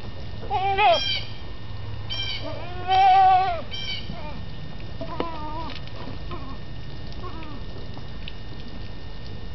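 Newborn goat kids bleating: a run of short, high, wavering calls, the loudest and longest about three seconds in, then fainter ones.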